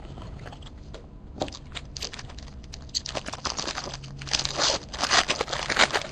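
Shiny foil wrapper of a baseball card pack being torn open and crinkled by hand: a run of irregular crackles and rips that gets loudest about two-thirds of the way through.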